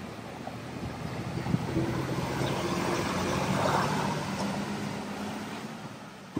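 A vehicle driving through floodwater past the microphone: its engine hum and the rush of displaced water build to a peak about halfway through, then fade.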